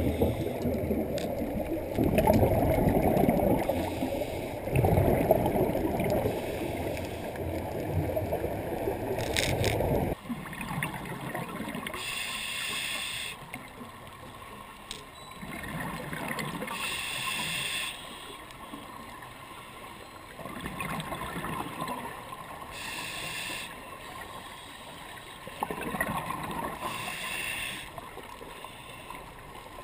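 Underwater sound picked up by a camera in its housing: loud rushing, sloshing water noise for the first ten seconds, then, after a sudden change, a quieter background with four separate bursts of bubbling, the exhaled bubbles of a scuba diver's regulator.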